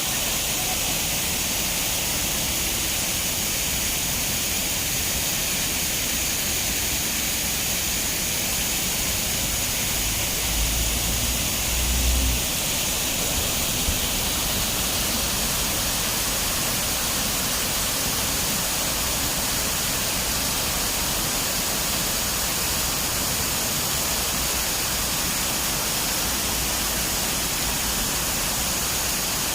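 Steady rush of water pouring down a building's waterfall water feature, an even hiss with a brief low rumble about eleven seconds in.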